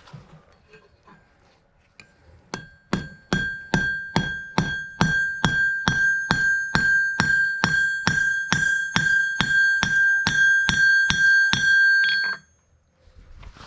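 Hammer striking a hot carriage bolt on an anvil, forging it, in a steady rhythm of about two and a half blows a second, with the anvil ringing in a high tone between blows. The hammering starts a couple of seconds in and stops suddenly near the end.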